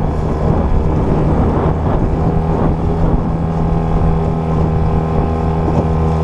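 Outboard motor of a small aluminium jon boat running steadily at cruising speed, with a constant engine tone. Wind buffets the microphone and choppy water rushes past the hull.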